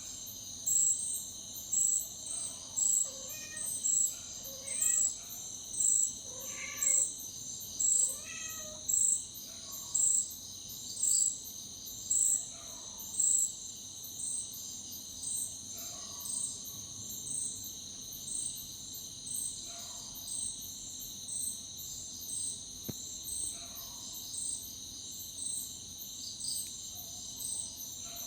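A cat meowing repeatedly, about ten short meows spaced a few seconds apart, over a steady high chirping of insects that pulses roughly once a second.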